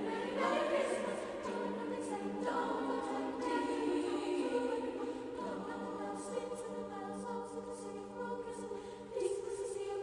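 Background music: a choir singing long sustained chords that shift every few seconds.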